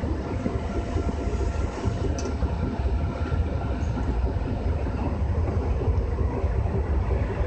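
JR West 201 series electric commuter train running at speed, heard from on board: a steady heavy rumble of wheels on rails with a faint steady whine over it.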